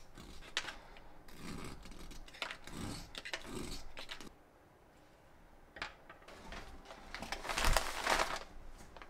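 Crumpled kraft-paper package being cut open with a utility knife: scattered crinkling, scraping and clicks of the blade and paper. Near the end, white wrapping paper is pulled back and rustles loudly.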